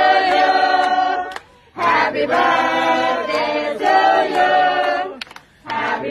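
A group of voices singing together in chorus, in held phrases with two short breaks.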